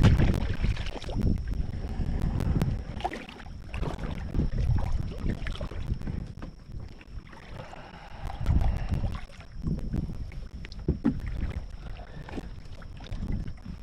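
Gusty wind buffeting the microphone in uneven surges, with water splashing and short knocks from a small boat on choppy water.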